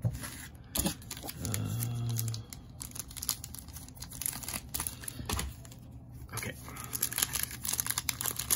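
Plastic wrapping and foil packs of a box of trading cards being torn open and crinkled, a dense crackling that grows busier near the end, with a brief low hum about two seconds in.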